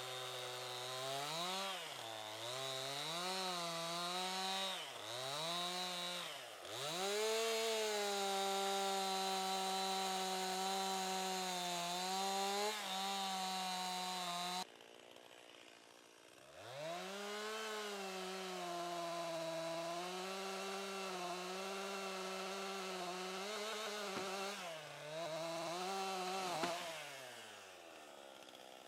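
Two-stroke chainsaw revved up and down several times, then held at a steady high speed for long stretches while cutting pine. The sound breaks off abruptly about halfway through, comes back a couple of seconds later, and winds down near the end.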